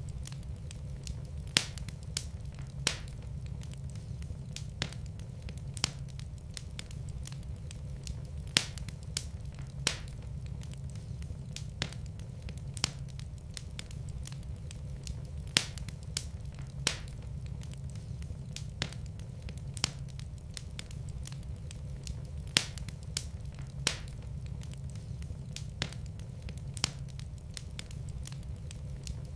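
Wood fire burning in a fireplace: irregular sharp crackles and pops, a few much louder than the rest, over a steady low rumble of the flames.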